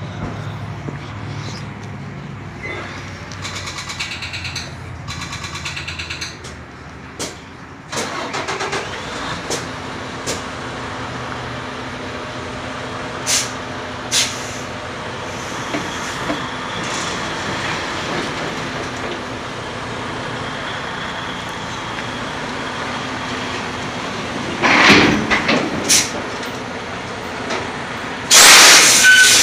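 Semi truck's diesel engine idling steadily, with a few sharp clicks and knocks, then two loud bursts of air hissing from the truck's air brake system near the end, the second one louder.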